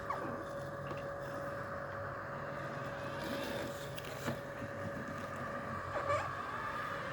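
Worx Landroid M700 robotic lawn mower running with a steady motor hum, its front wheel giving short squeaks as it turns, once at the start and again about six seconds in. The squeaking in curves points to a worn or dry front wheel.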